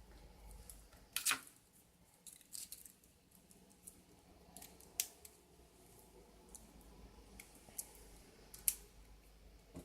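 Scattered light clicks and taps of small plastic robot-arm parts being handled, the loudest about a second in, another near the middle and one near the end.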